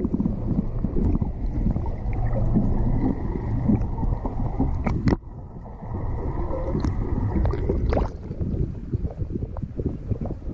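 Underwater camera audio: a muffled, churning rush and gurgle of water, with a faint steady high whine through the middle and a few sharp clicks.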